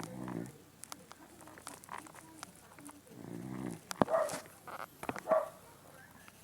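A dog snoring: two low, buzzing snore breaths about three seconds apart. Two short, louder sounds about a second apart come in the second half.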